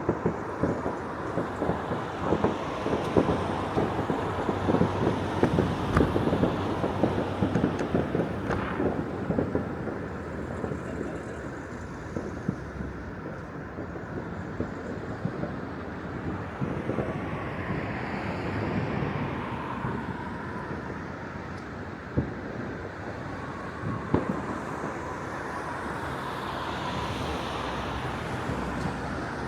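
Outdoor street noise: wind buffeting the microphone, with road traffic passing.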